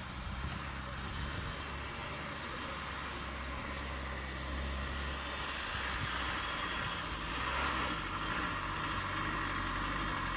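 A vehicle engine running steadily with a low hum, under a hiss that swells slightly about seven seconds in.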